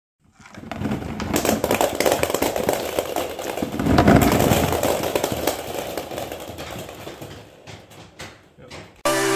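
Dozens of hollow plastic ball-pit balls dropping and bouncing on a wooden floor: a dense clatter of light hits that swells, peaks about four seconds in, then thins to a few scattered bounces as they roll apart.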